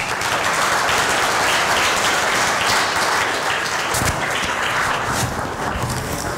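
Audience applauding, a steady dense clapping that eases off a little near the end.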